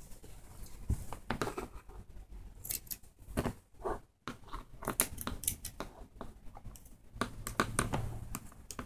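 Fabric scissors cutting through thick sweatshirt fleece: a string of short snips at an uneven pace, with a brief pause about four seconds in.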